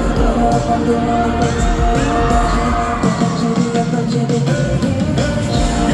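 Live K-pop song played loud over an arena sound system, with singing and the crowd cheering over it.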